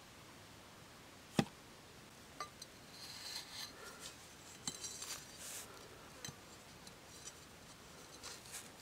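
A sharp knock about a second and a half in as the stick frame of the trap is handled, then a machete blade scraping and shaving at the wooden sticks in short strokes with light clicks.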